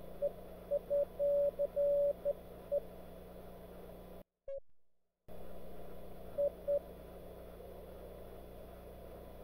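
Morse code (CW) keyed on an Elecraft K3 transceiver: a single steady-pitched tone sounding in dots and dashes over receiver hiss and a low hum. The audio cuts out for about a second midway, then two short dits sound amid the band noise.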